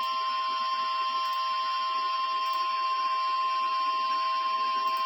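NOAA Weather Radio warning alarm tone: a single steady tone near 1050 Hz, with a fainter lower tone beneath it, over radio hiss. It signals that a warning message is about to be read.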